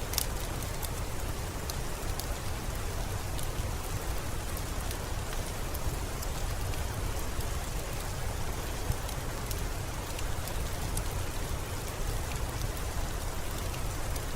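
Steady rain with a constant low rumble beneath it and many sharp, scattered drop ticks.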